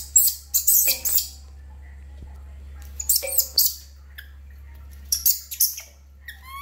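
Baby monkey crying loudly in shrill, very high-pitched screams, distressed at being bathed. The cries come in three bouts a couple of seconds apart, with short rising squeaks near the end.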